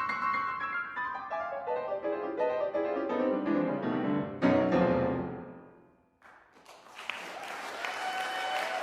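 Solo piano closing a fast toccata: a run of notes falls steadily in pitch into loud final chords that ring and die away. Audience applause breaks out about six seconds in.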